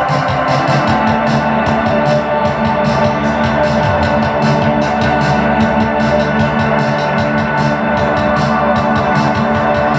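Loud, amplified live drone music: a dense wall of sustained, organ-like electronic keyboard tones held steady, with a fast flutter running through it and no clear beat.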